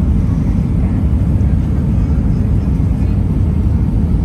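Steady, loud low rumble of cabin noise inside an Airbus A320-200 airliner: engine and airflow noise, with no distinct events.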